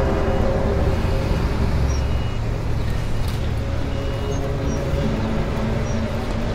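A loud, low rumbling drone with a few long, steady tones laid over it: the kind of 'strange sound' reported in the sky in 2012. Faint short chirps sound high above it a few times.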